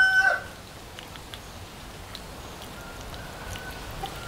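A rooster's crow ends in the first half-second. Then comes quiet rural background with a few faint clicks.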